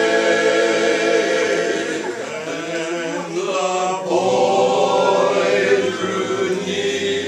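Male barbershop quartet singing a cappella in close four-part harmony, holding sustained chords and moving between them phrase by phrase.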